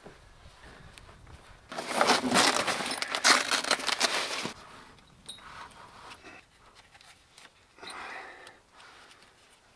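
A canoe spray deck being handled and fitted onto the canoe. About two seconds in comes a loud burst of crinkling, rustling and clicking that lasts nearly three seconds, followed by quieter scattered rustles and clicks.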